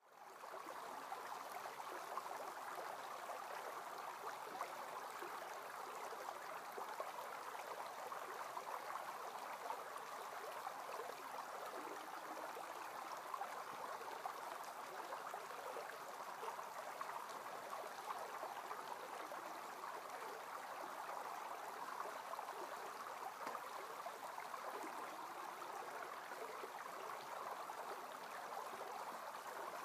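Steady rushing of a creek, an even, unbroken wash of running water that fades in at the start.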